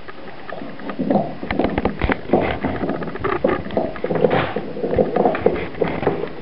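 A dog's claws clicking and scuffling on a hardwood floor in quick, irregular taps that grow busier about a second in.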